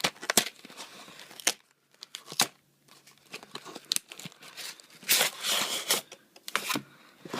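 Packaging of a baseball card box being torn and crinkled, with a few sharp clicks and taps early on and two longer stretches of rustling about five and six and a half seconds in.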